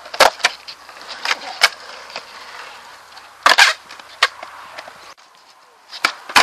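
Skateboard wheels rolling on concrete, broken by sharp clacks of the board slapping and landing during tricks, the loudest cluster about three and a half seconds in and more near the end.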